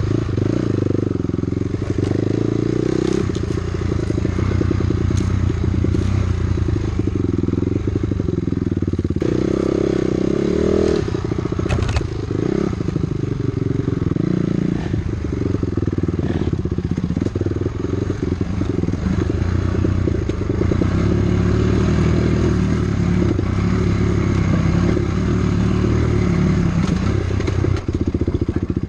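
Two-stroke dirt bike engine running under way on a rough trail, its revs rising and falling with the throttle. Now and then a sharp knock or clatter comes from the bike over rocks and ruts.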